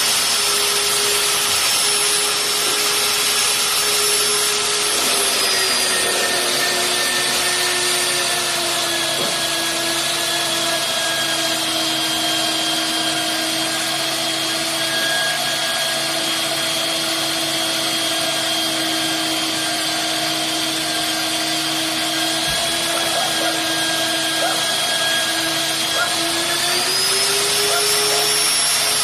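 Electric drill on a magnetic drill stand running continuously with a steady whine. About five seconds in its pitch drops and stays lower, the motor slowing as if under drilling load, then near the end it rises back to the free-running speed.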